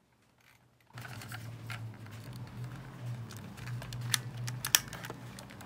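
Sharp scattered clicks and taps of a plastic toy film camera being handled, over a steady low hum. The sound starts about a second in, and the loudest clicks come singly about two thirds of the way through.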